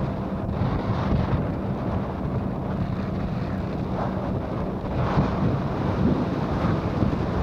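Steady rumble of a moving vehicle heard from inside: engine hum mixed with road and wind noise.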